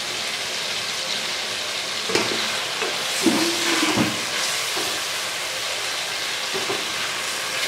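Chicken, onion and tomato sizzling as they fry in oil in a kadhai, with a spatula stirring through them and a few short scrapes between about two and four seconds in.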